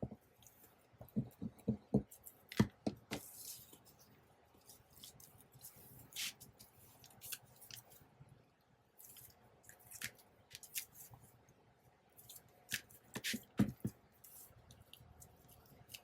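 Paper and craft materials handled at close range: short rustles and swishes with scattered ticks and light taps, and two clusters of soft knocks, one early and one near the end.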